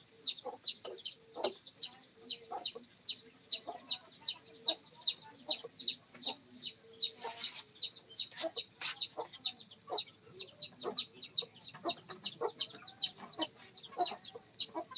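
A chick peeping over and over, short falling peeps at about four a second, shrill and steady.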